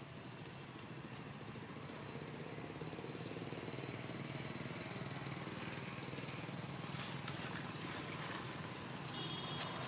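A steady engine hum that grows slowly louder, with faint crackles over it.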